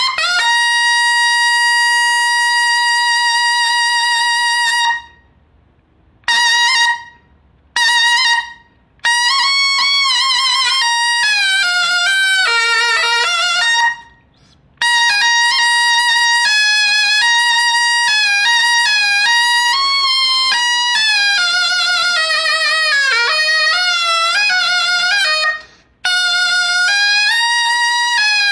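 Taepyeongso, the Korean double-reed shawm with a metal bell, played solo. It opens with a long held bright note, then plays a few short phrases broken by pauses for breath. From there it runs into a flowing melody of bending, wavering notes.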